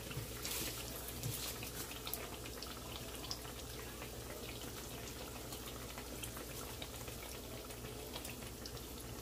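Biscuit-dough-wrapped Oreos deep-frying in canola oil: a steady bubbling sizzle peppered with small pops.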